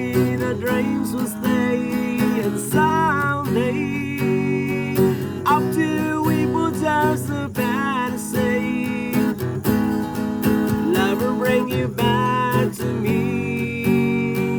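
Background music from a love song's instrumental passage: strummed acoustic guitar chords under a melody line that bends and wavers in pitch.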